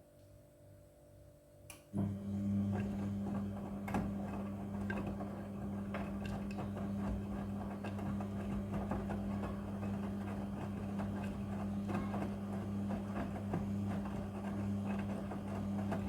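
Midea front-loading washing machine washing a load: about two seconds in, the drum motor starts with a steady low hum, and the laundry tumbles in the turning drum with many small knocks and rustles.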